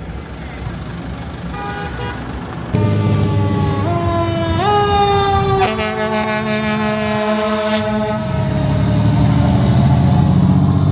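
Emergency-vehicle siren, most likely a fire truck's, coming on suddenly about three seconds in. Its pitch climbs in steps, then slides slowly down over a couple of seconds, over the low rumble of a heavy vehicle's engine and traffic.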